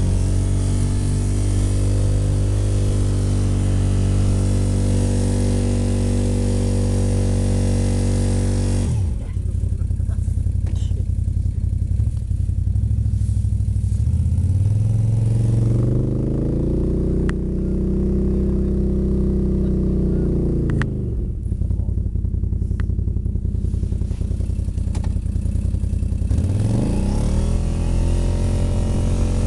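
Quad (ATV) engine running steadily with a hiss of snow and wind, dropping abruptly to idle about nine seconds in. Midway it is revved up, held and let fall back to idle, then revved up again near the end.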